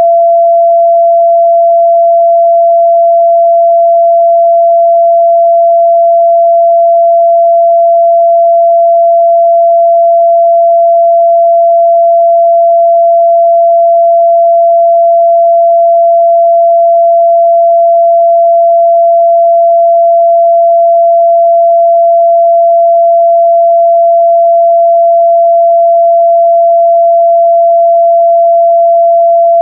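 A steady, loud 678 Hz sine-wave test tone, one pure pitch held without change.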